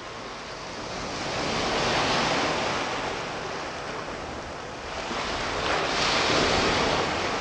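Sea surf breaking on a sandy beach: a steady rushing wash that swells about two seconds in and again near the end.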